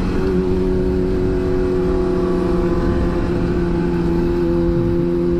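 Sport motorcycle engine running at a steady cruising speed on the highway, its pitch holding level, over a low rumble of wind and road noise on the bike-mounted microphone.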